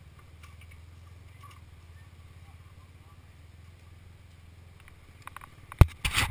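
ATV engines idling with a low, steady, pulsing rumble. Near the end a sharp knock sounds, then loud rattling and clatter as the quads get moving.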